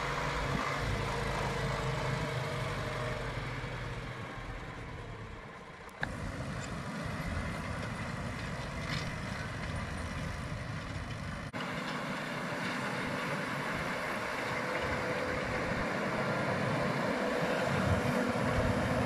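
Tractor engine running steadily in a hay field, its low note fading over the first few seconds, with a rumbling engine sound continuing after two abrupt breaks.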